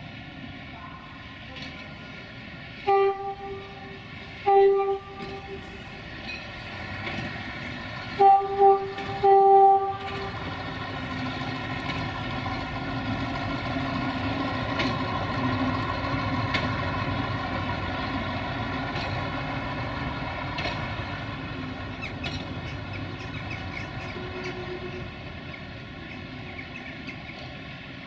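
UAM 215 rail maintenance vehicle sounding its horn in short toots: two single blasts, then three in quick succession, the last held longest. After that its engine and wheels on the rails grow louder as it passes, then fade.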